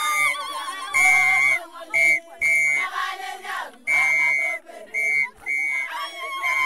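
A whistle blown in a run of short, flat, shrill blasts in an uneven rhythm, over a crowd of voices singing and ululating with a wavering pitch.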